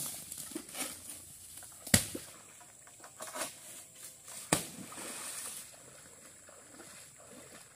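Floodwater sloshing and splashing around a person wading through it, with two sharp, heavy thuds: one about two seconds in and another a little past halfway.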